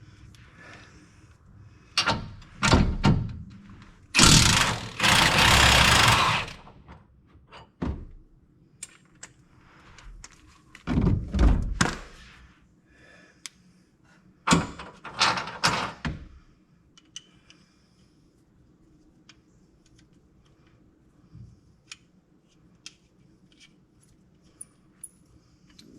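Metal clunks and clatter of hand-tool work on a truck's front bumper fastenings. A loud rattling, scraping stretch of about two seconds comes about four seconds in, two more clusters of knocks follow, and the second half holds only light ticks and taps.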